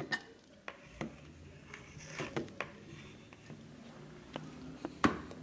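A few faint, scattered clicks and light rubbing from hands handling a CO2 regulator and its fittings.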